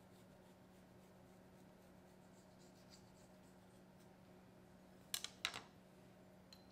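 Low steady hum, then a quick cluster of about four sharp light clicks a little after five seconds in and one faint tick near the end: small handling noises during food preparation.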